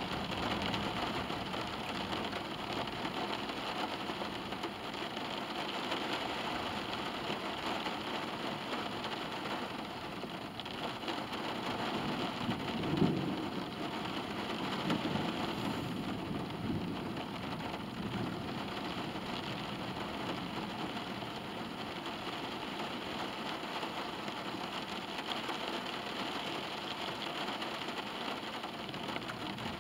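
Rain falling on a car's roof and windows, heard from inside the cabin as a steady hiss, with a brief louder knock about halfway through.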